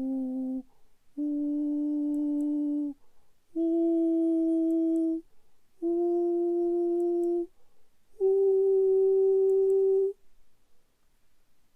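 A voice singing the vowel "oo" as five steady held notes, each about two seconds long with short pauses between, each a little higher than the one before; the first is already sounding and ends just under a second in.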